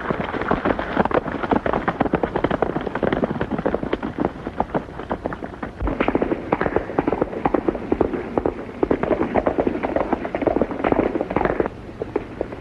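Several horses galloping: a dense, fast clatter of hoofbeats that drops a little in level near the end.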